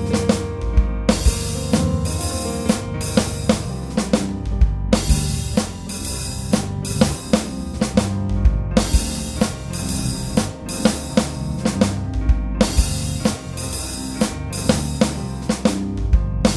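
Music with a drum kit playing a steady beat of bass drum and snare over sustained notes, with a deep low bass hit about every four seconds.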